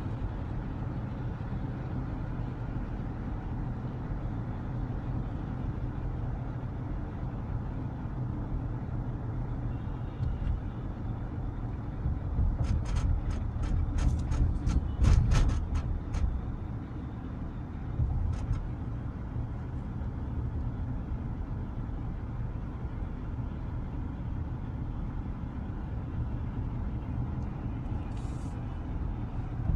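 Steady low road and engine rumble inside a moving car's cabin, with a run of sharp clicks for a few seconds around the middle.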